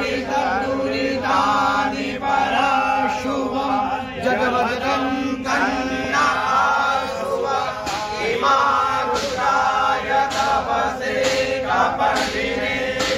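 A group of men chanting a Hindu devotional chant together in unison, with sharp strikes about once a second.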